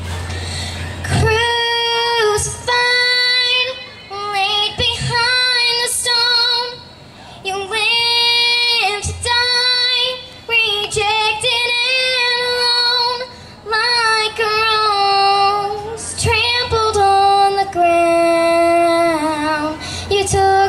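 A young girl singing solo into a handheld microphone, amplified through a PA: a gospel song sung in phrases with held notes and vibrato, and short breaks for breath between them.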